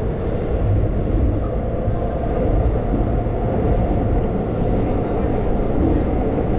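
Steady rumble of a subway train running, heard from inside the passenger car.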